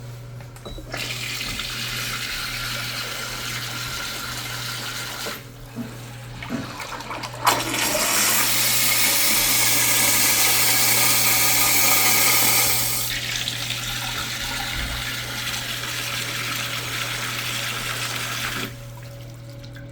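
American Standard toilet flushing: after some running water, a sharp click of the handle, then a loud rush of water for about five seconds that settles into a quieter hiss of the tank refilling, which stops near the end. A steady low hum runs underneath.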